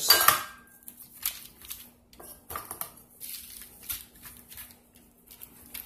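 Hands rubbing dry spice rub into raw chicken leg quarters on a foil-lined baking sheet: soft, irregular rustles and crinkles of skin and aluminium foil, after a sharper clatter at the very start. A faint steady hum runs underneath.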